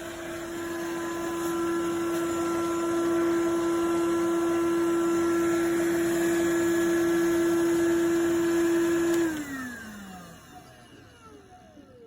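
iwoly C150 cordless stick vacuum's motor running with a steady whine, then switched off about nine seconds in, its pitch falling as the motor spins down.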